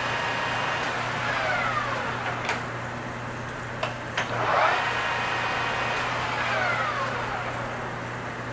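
Engine lathe turning a 6061 aluminium bar at 1000 RPM with a high-speed-steel cutting tool: a steady motor hum under a whine that glides down in pitch twice and rises once, with a few sharp ticks.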